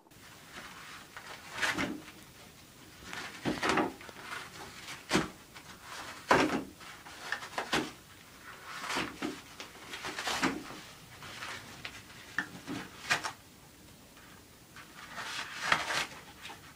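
Toilet paper rustling and tearing as a cat claws, bites and pulls at a roll on its holder, in irregular short scratchy bursts about every second or so, with a few sharper snaps.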